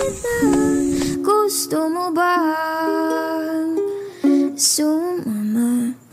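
Background music: a song with a sung melody over ukulele accompaniment.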